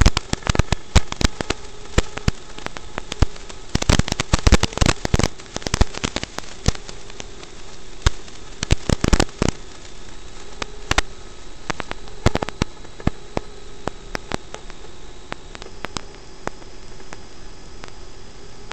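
Hiss and crackling static, the noise of an analog FPV video feed, under a faint hum that wavers slightly in pitch. The crackling comes thickest in two bursts, about a quarter of the way in and again about halfway.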